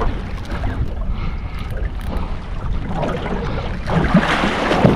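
Wind buffeting the microphone and water moving around the boat hull, a steady low rumble under a hiss, swelling into a louder rush about four seconds in.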